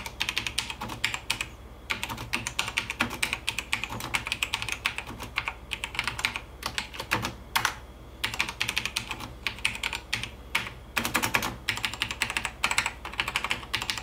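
Typing on a 1998 HCL mechanical keyboard with Cherry MX Black linear, non-clicky switches: quick runs of keystrokes broken by short pauses.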